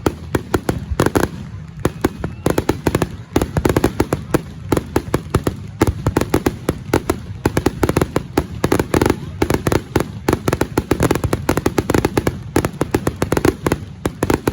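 Fireworks crackling and popping, a dense irregular run of sharp cracks several times a second.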